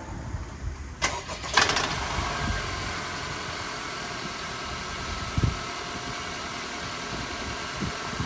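2019 Honda Accord's turbocharged 2.0-litre four-cylinder, fitted with an open K&N cold air intake, starting up about a second in, flaring briefly, then settling into a steady idle. A single short low thump about five seconds in.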